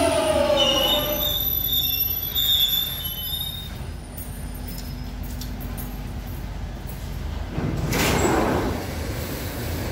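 Jubilee line 1996-stock tube train braking into a station: the motor whine falls in pitch and the wheels squeal high for the first few seconds, then a steady low rumble as it slows to a stop. A short loud hiss comes about eight seconds in.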